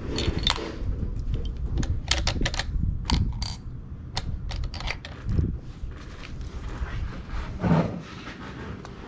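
Scoped rifle being handled at the bench: a run of light metallic clicks and knocks, thickest a couple of seconds in, over a steady low rumble.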